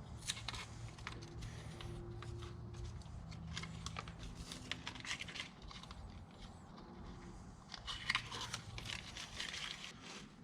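Hands working over the engine on a bench, making scattered small clicks, scrapes and crinkling, in clusters a few seconds apart.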